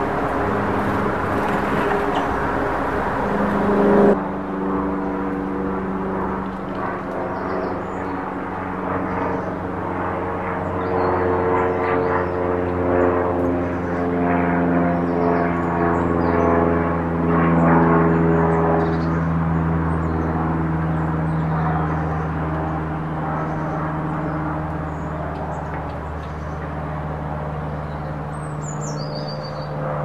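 Steady drone of an engine, its pitch sinking slowly, with faint small-bird chirps over it and a short, high, falling bird call near the end.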